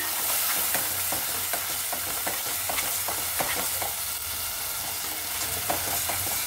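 Ground masala paste sizzling in oil in a stainless steel kadai, stirred without pause by a metal spatula that scrapes and taps against the pan many times. The paste is being fried until the oil separates from it.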